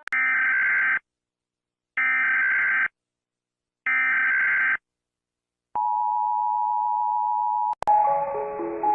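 Emergency Alert System SAME header: three bursts of digital data tones, each about a second long with a second's silence between them. A steady two-note attention tone follows for about two seconds and cuts off near the end as music with chiming mallet notes begins.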